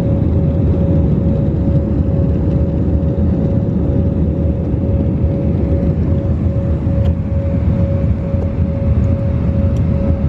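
Steady rumble of an airliner cabin in flight, with one steady hum tone held throughout.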